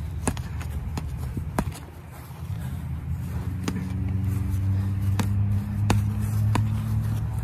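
Boxing gloves smacking during sparring: single sharp slaps every second or so. From about three seconds in, a low steady vehicle engine hum swells underneath.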